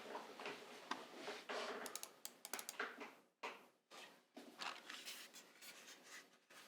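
Hands handling a mechanical keyboard on a desk: light scraping and rubbing strokes with a few soft clicks, irregular and quiet.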